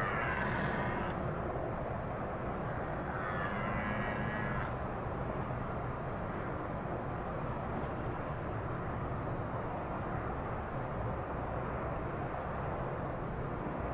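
Red deer stag roaring faintly twice: one call at the very start and another about three seconds in, each lasting about a second and a half. A steady low rumble runs underneath.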